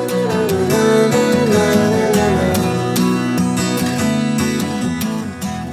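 Outro music with acoustic guitar strumming chords, beginning to fade out near the end.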